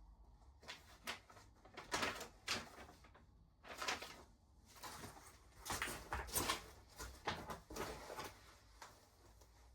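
Irregular knocks, scrapes and rustles of parts being handled, in uneven strokes several times a second.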